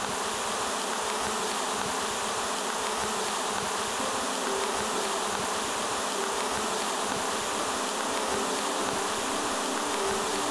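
A honeybee swarm buzzing: a steady hum of many bees with a slightly wavering pitch.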